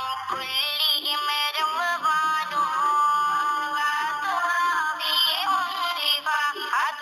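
Background music: a song with a singing voice sliding between long held notes.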